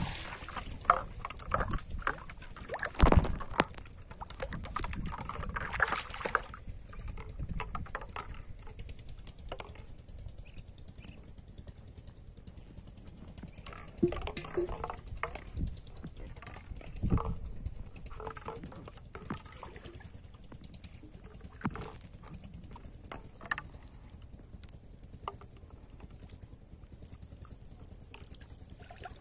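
Pond water splashing and sloshing in short, irregular bursts around floating plastic bottles, with scattered small knocks. It is busiest in the first few seconds, then quieter, with only occasional splashes.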